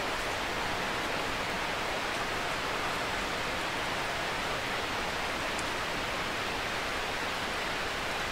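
Flowing water from a stream: a steady, even rush.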